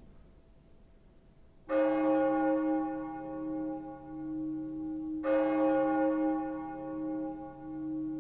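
A deep church bell tolling: the first stroke about two seconds in and a second about three and a half seconds later, each ringing on long.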